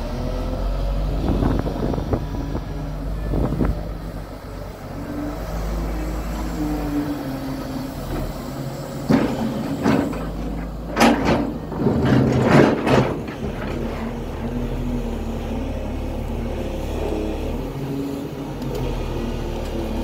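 JCB excavator's diesel engine running steadily, its pitch shifting as the hydraulics work. Between about nine and thirteen seconds in comes a cluster of loud knocks and scrapes as the bucket strikes and drags through rock.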